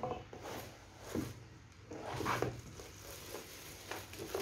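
Cardboard box and plastic wrapping rustling and scraping as a small coffee maker is slid out of its packaging, in several irregular bursts.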